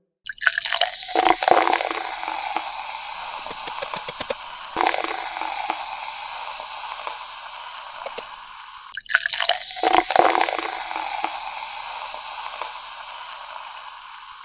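Date palm sap poured from a pot through a plastic funnel into a plastic jerry can, a steady splashing, gurgling stream. It starts suddenly about a second in, surges again about nine seconds in, and tails off near the end.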